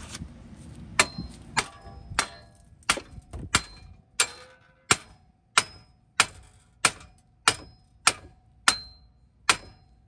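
A hammer strikes the rusted old front hub bearing assembly over and over to knock it loose from the steering knuckle after its bolts are out. There are about fourteen blows, roughly one every two-thirds of a second, some leaving a brief metallic ring.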